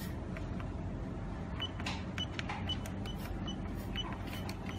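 Electronic keypad beeping as a password is keyed in: six short high beeps about half a second apart, starting a little over a second and a half in, with faint clicks of button presses.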